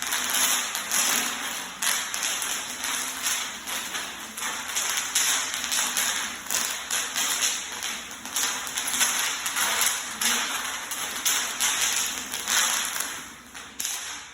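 Bubble wrap popping in rapid, irregular cracks under a hoverboard's wheels, stopping about a second before the end.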